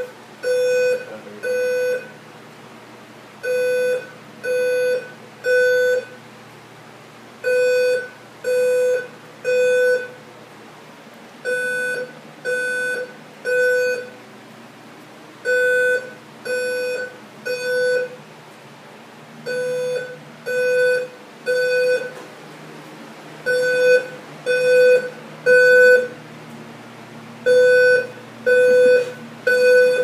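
Fire alarm sounding in the temporal-three pattern: three low-pitched beeps about a second apart, a short pause, then again, over and over. This is the standard fire evacuation signal.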